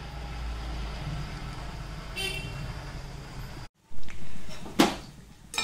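Onion vada batter frying in hot oil in a cast-iron kadai, with a short vehicle horn toot about two seconds in. The sound breaks off abruptly past the middle, then comes back louder, with a couple of sharp knocks near the end.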